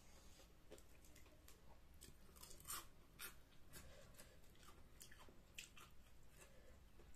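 Faint chewing and crunching with scattered crisp clicks, as raw white cabbage leaves are torn apart by hand and eaten.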